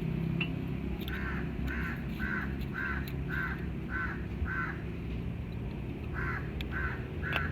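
A crow cawing in two runs: seven caws at about two a second, a short pause, then three more.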